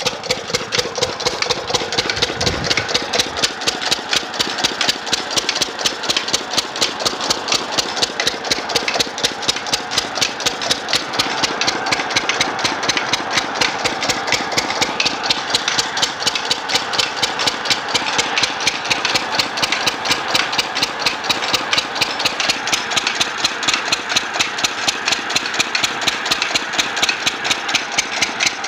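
Single-cylinder stationary diesel engine with twin flywheels running steadily at idle, an even beat of firing strokes. A brief low thump comes about two and a half seconds in.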